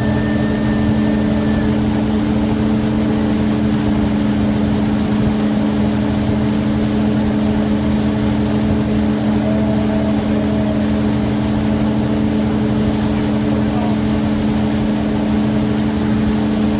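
Motorboat engine running steadily at towing speed, a constant even hum, over the rushing churn of the boat's wake.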